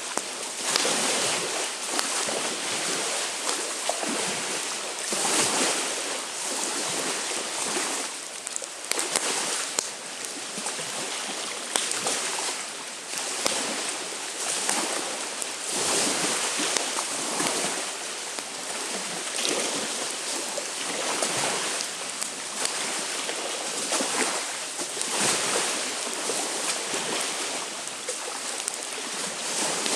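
Wind-driven waves washing onto the lakeshore in repeated swells every few seconds, with wind and a few sharp crackles from a driftwood campfire.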